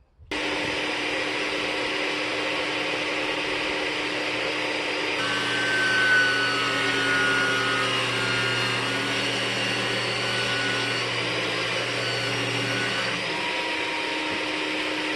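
A steady electric motor, such as a power tool or shop vacuum, starts abruptly and runs continuously. Its sound changes abruptly twice, about 5 and 13 seconds in.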